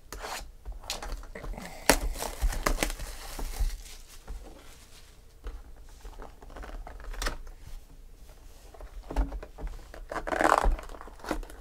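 Cardboard trading-card box being handled and opened: scattered taps and clicks of cardboard, with a stretch of rustling about two seconds in and another near the end.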